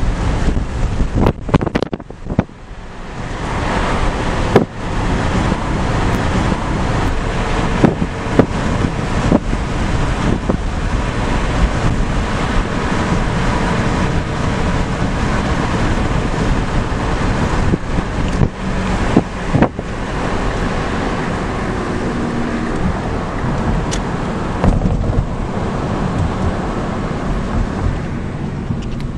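Steady road and wind noise of a moving car, with wind buffeting the microphone. The noise swells about three seconds in, and a few short knocks and bumps cut through it.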